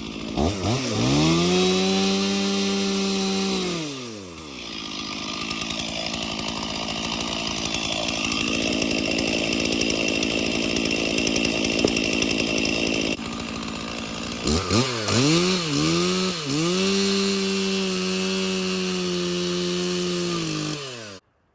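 Two-stroke chainsaw revved up to full throttle and held there, dropping back at about four seconds. Near the end it gets a few quick throttle blips, holds at full revs again, and cuts off suddenly.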